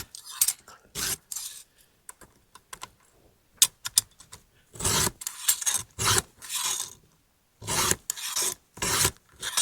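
A file rasping across the cutting teeth of a Stihl MS-261 chainsaw chain during sharpening. A few scattered scrapes and clicks come first, then steady strokes at about two a second in the second half.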